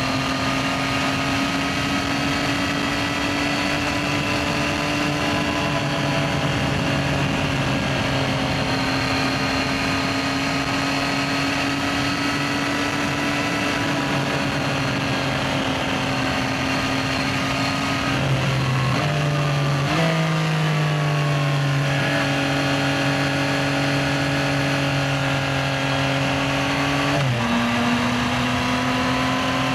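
Yamaha XSR900's three-cylinder engine running under way at a mostly steady engine speed, with steps in pitch about two-thirds of the way through and again near the end as it changes gears.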